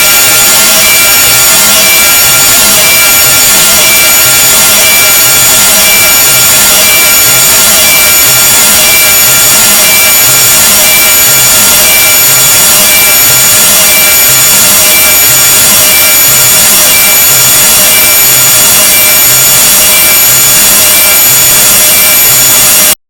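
Very loud, harsh grating noise with steady high-pitched tones running through it and a low pulse repeating about once a second. It cuts off suddenly near the end.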